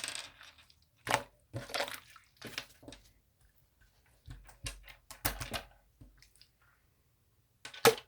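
Light-green slime being squished: a series of irregular wet squelches and crackling pops, with one sharp pop near the end.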